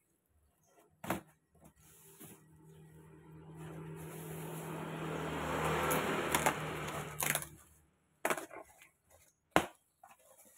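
Bubble wrap and a cardboard box being handled and torn open: scattered sharp crackles and snaps. In the middle, a noisy sound with a low hum under it swells for several seconds and then stops suddenly.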